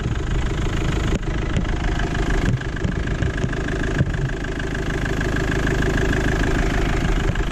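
Fiat Ducato 2.5 litre diesel engine idling steadily, heard close up in the engine bay, just restarted after a fuel filter change and running without leaks at the new filter. A few short knocks stand out over it.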